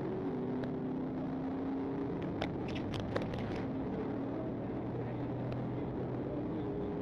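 Car engine and road noise, running steadily at speed, with a few light clicks and ticks a little before the middle.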